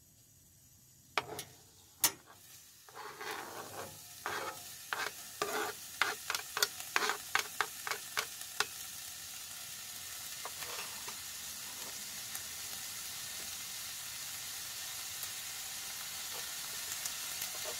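Diced onion and tomato raked off a plastic cutting board into a hot stainless skillet of olive oil: a utensil taps and scrapes on the board and pan in a quick run of sharp clicks, while the oil starts to sizzle. From about halfway through, the vegetables fry with a steady sizzle that slowly grows louder.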